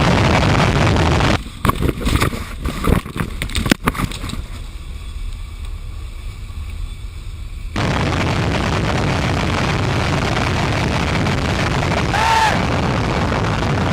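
Aircraft jet engine running loud and steady. About a second and a half in the sound drops away abruptly to several seconds of quieter noise with crackling pops, then the steady engine noise returns suddenly near the eight-second mark. Near the end a brief pitched tone rises and falls over it.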